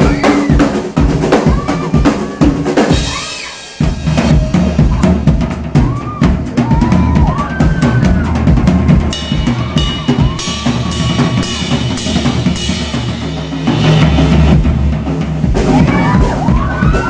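Live drum kit solo: fast, dense bass drum, snare and cymbal hits. The drumming drops away briefly about four seconds in, then comes back loud. High-pitched audience screams rise and fall over it.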